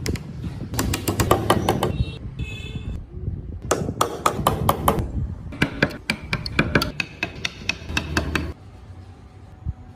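Quick runs of sharp taps as a carving chisel is struck into wood, in three bursts, with a brief squeak between the first two; quieter near the end.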